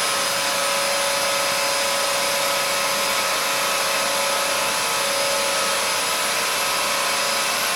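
Dyson DC33 Multi Floor upright vacuum cleaner running steadily: a constant motor whine over a rush of air.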